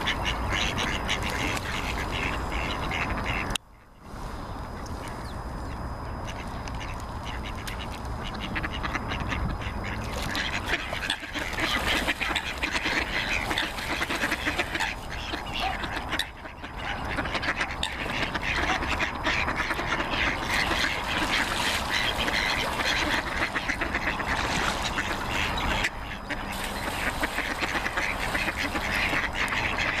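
A flock of mallard ducks quacking on the water, many calls overlapping without a break, with a short dropout about four seconds in.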